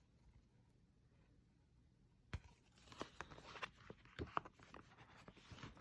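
Faint handling of an album's paper and plastic packaging: quiet for about two seconds, then a single sharp click followed by scattered light taps and rustles.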